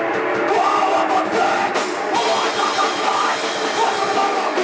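Grindcore band playing live at full volume: distorted electric guitar and pounding drum kit in a dense, unbroken wall of sound.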